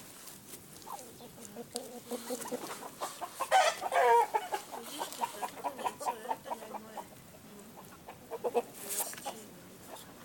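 A flock of Kalimero broiler chickens clucking in short scattered calls, with one louder drawn-out call about three and a half seconds in and another brief one near the end.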